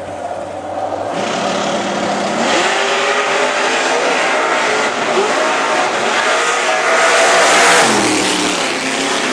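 Chevrolet Cavalier Z24 drag car's engine idling low, then revving in rising surges. It is loudest about seven and a half seconds in, and then its pitch drops sharply as the throttle comes off.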